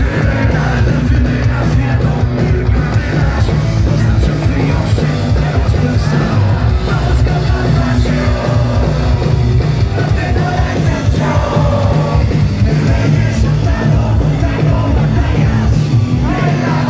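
Live punk rock band playing at full volume through a PA: distorted electric guitars, bass and drums with lead vocals, heard from within the audience.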